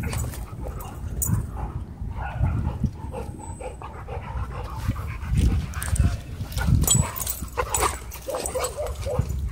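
Dogs wrestling at close quarters, among them a German Shorthaired Pointer: short yips, whines and barks over scuffling. The cries come thicker in the second half.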